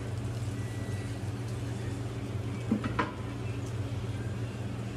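Steady low hum of a commercial kitchen, with two sharp clacks a fraction of a second apart near the middle as kitchen utensils are handled on a stainless-steel counter.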